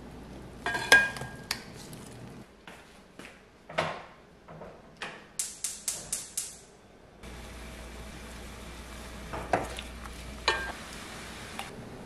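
Kitchen handling sounds: a metal colander clinks at the sink, then about halfway through a gas range's igniter clicks about seven times in quick succession. The burner lights and keeps up a steady low rush, with two clinks of cookware.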